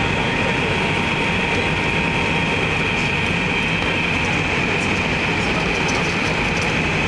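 Steady rush of jet engines and airflow heard inside an airliner's cabin as it comes in to land, an even hiss over a low rumble.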